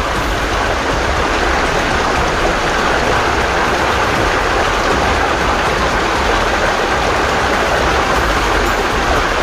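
Water running steadily down a seeping rock face, a constant even splashing noise.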